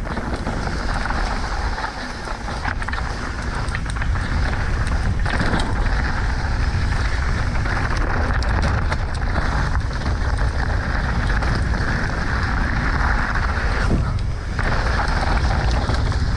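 Wind buffeting a bike-mounted or helmet camera's microphone as a mountain bike descends fast, with its tyres rolling and crunching over dirt and rock and small rattles throughout. The noise eases briefly about fourteen seconds in.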